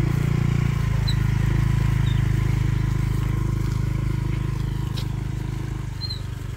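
Small motorcycle engine running steadily at low speed on a dirt track, a low hum that eases off a little in the second half.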